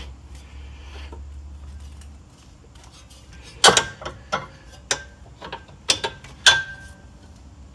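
Sharp, irregular metal clicks and clanks, about eight of them over three seconds, a few with a short ring: a new front sway bar link being worked into place against the sway bar.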